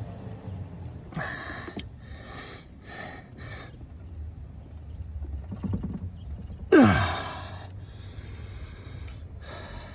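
A man breathing hard in short bursts as he strains on a small ratchet against a very tight cam hub bolt. About seven seconds in there is a loud, sudden grunt-like sound that drops quickly in pitch.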